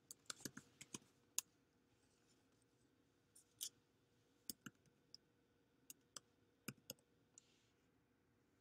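Computer keyboard typing in short, uneven runs of keystrokes: a quick cluster of taps at the start, then scattered single taps and pairs with pauses between.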